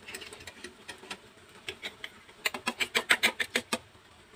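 A metal spoon clinking against a stainless steel bowl as egg mixture is stirred: a few scattered clinks, then, about two and a half seconds in, a quick run of about ten clinks a second lasting just over a second.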